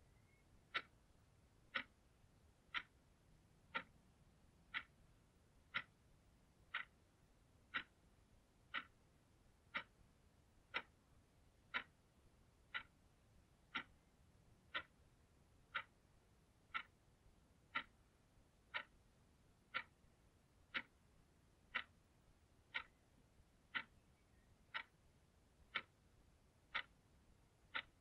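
Blue analogue alarm clock ticking steadily, one sharp tick each second.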